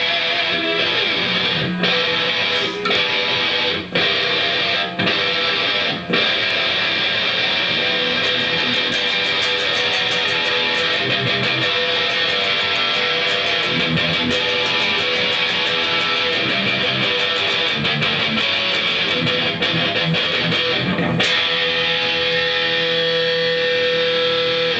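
Electric guitar played fast and loud, with a few short stops in the first six seconds and a single note held near the end.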